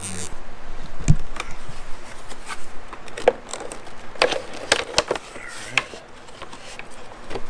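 Hands working a wire in under plastic motorcycle bodywork: scattered clicks, taps and rubbing of plastic and cable, with a heavier knock about a second in.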